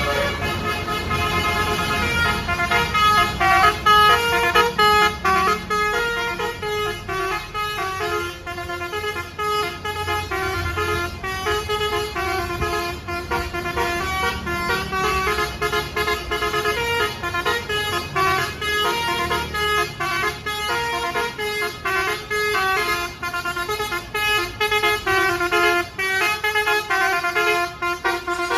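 Tour bus's basuri 'telolet' melody horn playing a tune, a quick run of pitched notes stepping up and down several times a second, over a low engine rumble.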